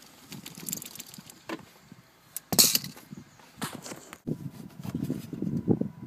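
Handling noise from the old seatbelt anchor being lifted out: scattered clicks and knocks of metal parts, with one loud sharp clack about two and a half seconds in and a stretch of low rubbing and bumping near the end.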